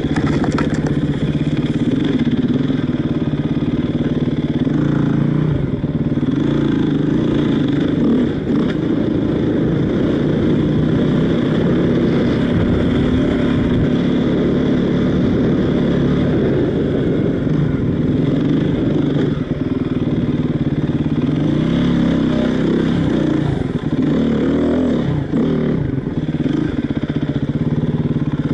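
Enduro dirt bike's engine running at low revs over rough ground, its pitch rising and falling with the throttle, with a few quick rev swells near the end.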